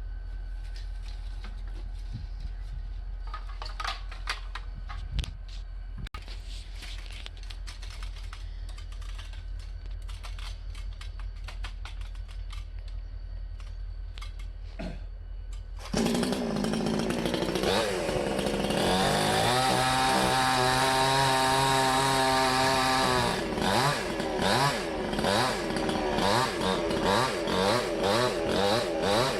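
Salem Master two-stroke gas chainsaw. For about the first half there is only a low steady rumble with a few clicks. Then, about halfway in, the saw comes in loud and revs up, holds at high revs for a few seconds, and is then revved in quick repeated pulses, about one and a half a second.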